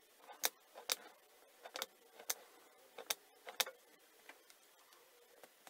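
Craft knife cutting into thin cereal-box card on a cutting mat: a series of sharp clicks, roughly one every half second, thinning out after about four seconds.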